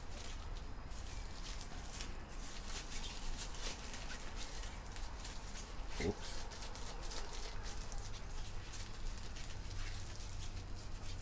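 Blue disposable gloves being pulled on and worked over the fingers: rubbery rustling and crackling, with a short rising squeak about six seconds in. A steady low hum runs underneath.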